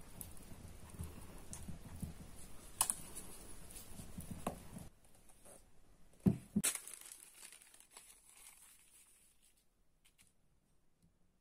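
Silicone spatula stirring and scraping thick pancake batter in a glass bowl for about five seconds. About six seconds in, two sharp knocks, the loudest sounds here, as objects are set down on the counter, then faint handling.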